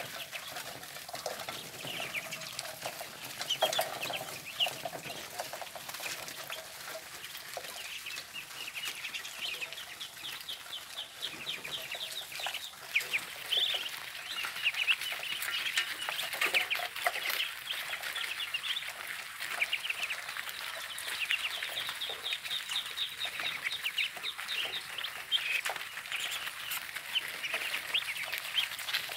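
A flock of young Muscovy ducks peeping: many short, high calls overlapping, growing busier about halfway through.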